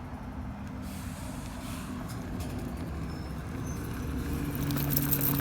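Bus engine and road noise: a steady low rumble with an engine hum that grows louder over the last second or so.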